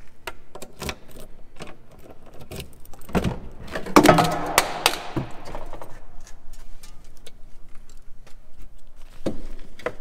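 Handling noises at the rear of a Jeep Wrangler TJ: scattered clicks and knocks as the tailgate is opened, with a loud clunking, rattling spell about four seconds in, then gear being shifted about in the cargo area.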